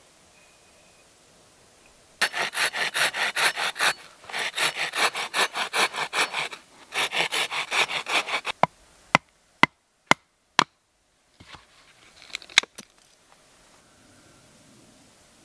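Hand saw cutting through a peeled length of dry poplar, rasping back and forth at about four strokes a second in three runs with short pauses between. After that come several sharp, separate wooden knocks.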